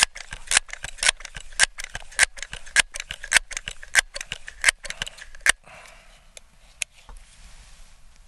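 Crosman 1322 multi-pump pneumatic pellet pistol being pumped ten times: the pump lever worked open and shut in a steady rhythm about two strokes a second, each stroke ending in a sharp click, stopping about five and a half seconds in. A couple of light clicks follow.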